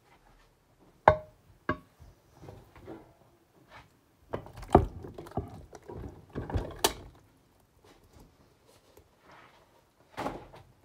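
A spoon clinking and scraping against a pot as thick casserole filling is scooped into a baking pan: a sharp ringing clink about a second in, another soon after, a busy stretch of scraping and knocks in the middle, and another clatter near the end.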